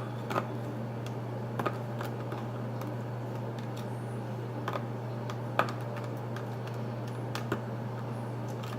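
Homemade slime being mixed and poked in a container, with a few scattered light clicks and taps spaced irregularly. A steady low hum runs underneath.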